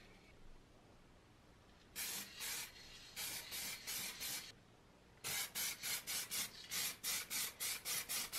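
Aerosol spray-paint can giving short bursts of spray: two about two seconds in, four more around three to four seconds, then a quick run of about a dozen short bursts, roughly four a second.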